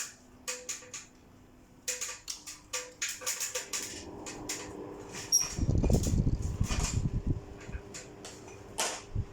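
Split air conditioner's indoor unit starting up: a run of sharp clicks, then a steady hum sets in a few seconds in, with a loud low rumble for about a second and a half around the middle.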